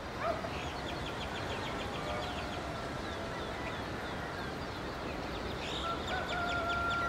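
Outdoor village ambience: a steady background hiss with small birds chirping in quick runs of high notes. Near the end comes one long, held bird call.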